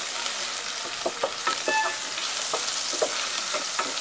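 Crushed garlic and ginger-garlic paste sizzling steadily in hot oil in a non-stick pan. A wooden spatula stirring it knocks and scrapes against the pan several times.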